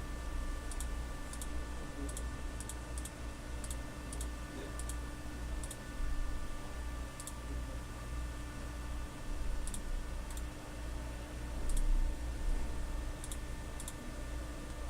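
Scattered light clicks at a computer, a dozen or so at irregular intervals, over a steady low electrical hum.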